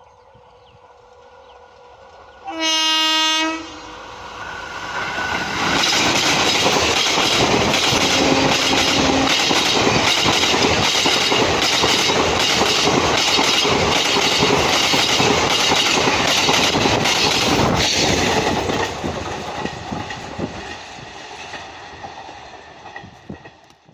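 WAP-4 electric locomotive sounding one short horn blast, then the train passing at speed with a fast clickety-clack of wheels over rail joints, loud for a while and then fading away.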